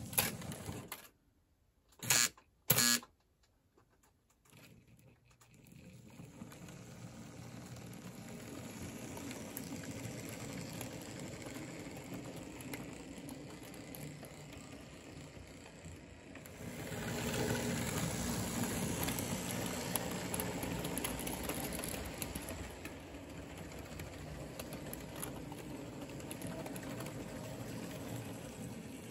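Märklin HO model train rolling past: the wheels of a long string of side-dump wagons make a steady clatter on the track. The clatter builds gradually and is loudest a little over halfway through. Two sharp clicks come near the start.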